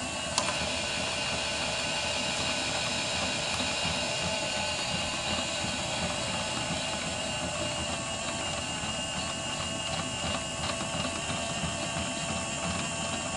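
Toy washing machine running steadily, its small motor whirring with a constant whine; a sharp click about half a second in.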